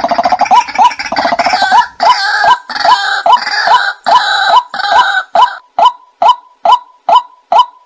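White-breasted waterhen calls from a bird-lure recording: a steady run of short repeated notes, about three a second, with a louder, rougher chorus of overlapping calls over them that stops about five and a half seconds in.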